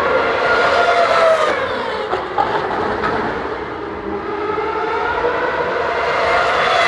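Formula 1 cars' 2.4-litre V8 engines running at high revs on the approach to a corner. The engine note glides up and down and is loudest about a second in and again near the end as cars pass.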